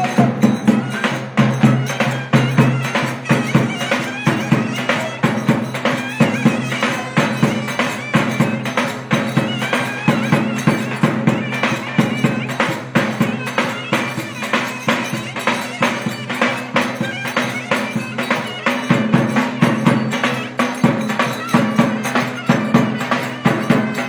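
Live Turkish folk dance music: a davul bass drum beaten in a steady, driving rhythm under a reed wind instrument playing a winding, ornamented melody.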